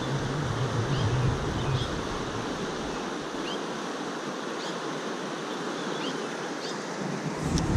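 Steady rush of a fast river's current, with short high bird chirps about once a second. Wind starts buffeting the microphone near the end.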